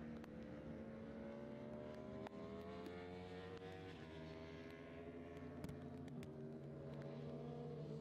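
Superbike racing motorcycle engines heard from a distance, several at once. Their pitch climbs as they accelerate, drops about four seconds in, climbs again and falls near the end.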